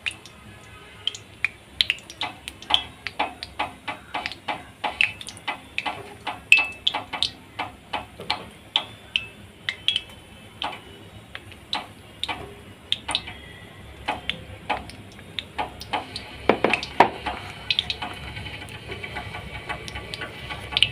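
Hot oil in a kadhai crackling and popping as dollops of besan batter are dropped in by hand and fry. There are sharp, irregular pops, several a second, over a low sizzle that grows louder in the last few seconds.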